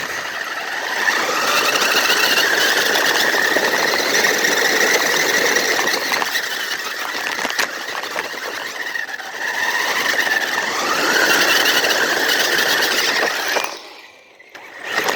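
Small electric motors and gearboxes of RC vehicles (a toy truck and tank) running hard: a steady gear whine over a gritty grinding that shifts in pitch with the throttle, cutting off about a second before the end.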